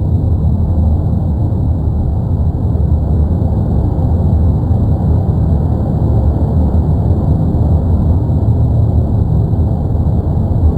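Erupting volcano's vent giving off a steady, deep rumbling roar, with no breaks or single blasts.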